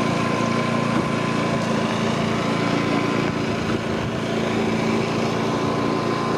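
A machine running steadily with an even drone and a constant high whine, like a small engine.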